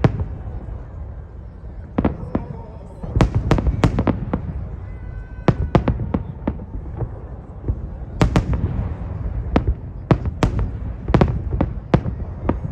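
Fireworks display: shells bursting with sharp bangs at irregular intervals, several in quick clusters, over a continuous low rumble.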